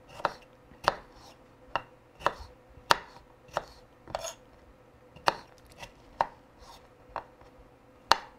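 Kitchen knife cutting fresh strawberries into small pieces on a wooden cutting board: sharp, uneven knocks of the blade striking the board, about one and a half a second.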